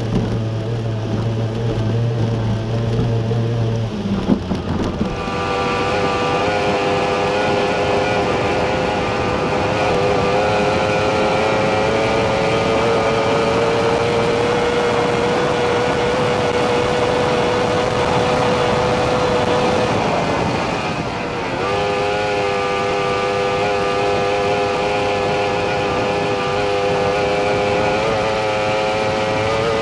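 Formula 1 tunnel-hull racing powerboat's outboard engine running at speed, a steady high whine. About 20 seconds in the pitch drops briefly as the throttle eases, then picks straight back up. For the first few seconds the sound is lower, heard from the camera inside the cockpit.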